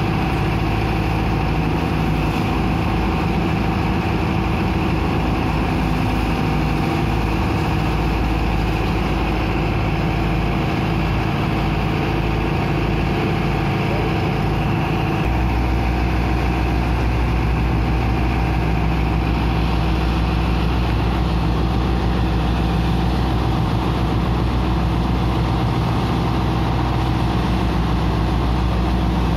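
Engine of a sand dredger pump running steadily, over the constant rush of water and sand slurry being jetted and sucked out of a ship's hold. The low engine note shifts about fifteen seconds in.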